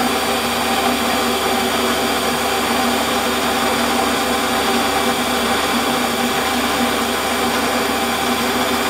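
Warco metal lathe running steadily, its motor and gearing giving an even hum with a few held tones, while the tool takes a very light finishing cut to blend two turned surfaces.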